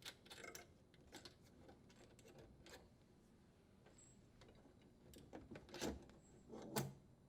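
Faint, scattered clicks and light rattles of small parts being handled, with a couple of slightly louder clicks near the end: the strain relief nut being unthreaded and the strain relief and power wires pulled free of a dishwasher's terminal box.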